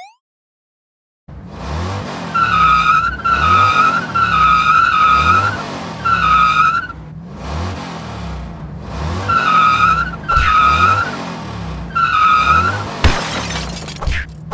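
Dubbed monster-truck sound effect: an engine revving in repeated surges with tire squeals on top, starting after about a second of silence. A burst of crashing noise comes near the end.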